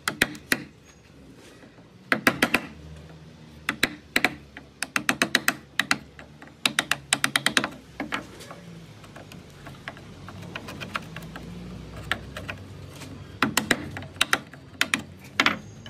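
Small hammer tapping a wood chisel in quick runs of light blows as it cuts into a pine door frame, with a quieter stretch in the middle.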